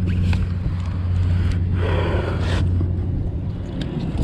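A steady low motor-like hum drones throughout. Over it comes rustling from handling a fabric bag, loudest for about a second in the middle.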